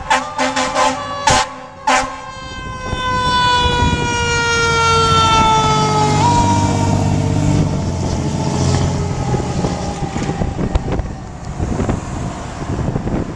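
Fire engine's air horn blasting in several short bursts, then its siren holding one long tone that slowly falls in pitch, over the rumble of the truck's engine as it passes close and pulls away.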